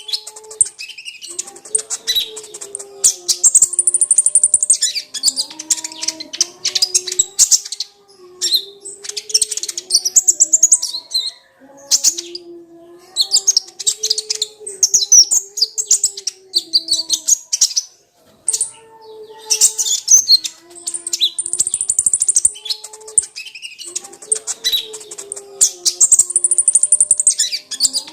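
Kolibri ninja sunbird singing: fast, high twittering trills in bursts of a second or two with short breaks between them, over a lower wavering tone.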